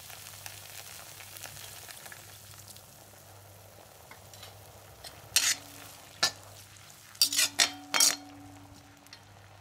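Onions sizzling gently in a black kadai while a cornflour-and-water slurry is stirred in with a perforated steel skimmer. The skimmer scrapes and clinks sharply against the pan several times in the second half, the loudest cluster about seven to eight seconds in.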